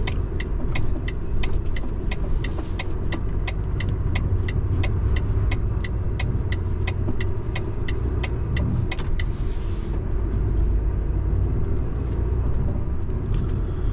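Heavy truck's engine and road noise rumbling steadily inside the cab, with the turn indicator ticking at about four clicks a second until it stops about nine seconds in. Two short hisses, one about two seconds in and one just as the ticking stops.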